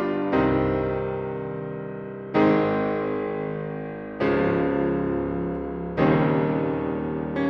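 Background music: slow, sustained keyboard chords, a new chord struck about every two seconds and left to ring and fade.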